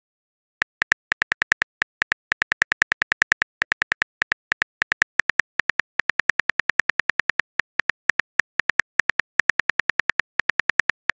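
Simulated phone-keyboard typing sound of a texting-story chat animation: a fast run of short, bright clicks, about five a second and slightly uneven, as a message is typed out.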